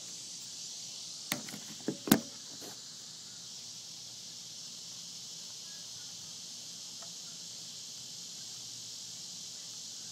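Steady high-pitched chorus of insects, crickets or the like, with a few sharp knocks and clicks between one and two seconds in, the last the loudest, as the camera is handled and set down.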